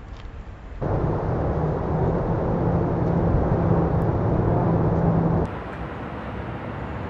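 A steady low motor hum with rumble, like traffic or an engine outdoors, starting abruptly about a second in and cutting off abruptly about five and a half seconds in, leaving a quieter background.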